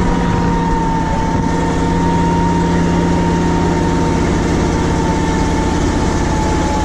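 Ural truck's engine and drivetrain running steadily under way, heard from outside the cab, with a high whine that slowly drops in pitch.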